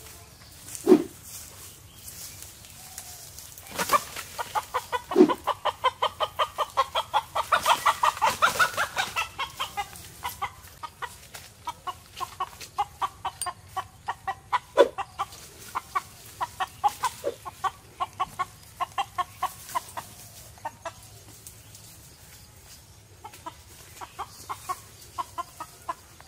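Deshi (country) chicken clucking in long runs of short repeated calls, about four a second, loudest and densest in the first half and then in sparser bursts. A few sharp, louder sounds cut in, about a second in and again near the middle.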